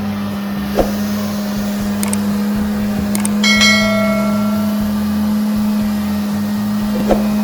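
A steady machine hum on one pitch runs throughout under a low, uneven rumble. About three and a half seconds in, a short metallic ringing dies away over half a second. Two light knocks come about a second in and again near the end.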